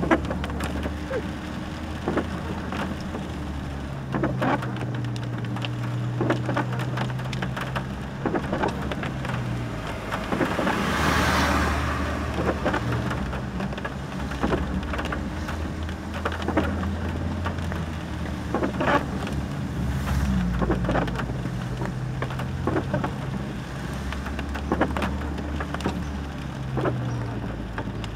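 Rain on the car's roof and windshield heard from inside the cabin, over a low steady engine hum from a car descending a steep road in low gear, with scattered clicks. About eleven seconds in, a hiss swells and fades.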